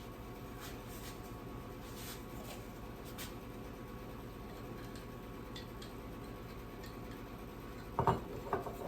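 Steady low room hum with a few faint clicks, then a short clatter of kitchen things being handled near the end.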